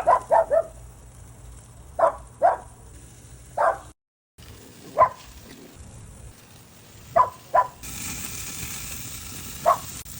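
A dog barking in short, sharp yelps, singly and in quick pairs or clusters, about a dozen in all. Under the barks, meat sizzles faintly on the grill, growing louder near the end.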